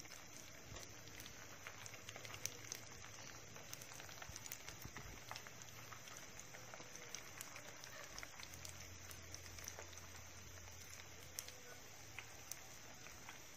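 White glutinous-rice balls frying in hot oil in a pan: a faint, steady sizzle with many scattered small crackles and pops.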